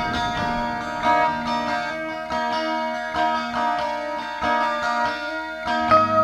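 Music: a melody of plucked, guitar-like notes with many short notes in quick succession.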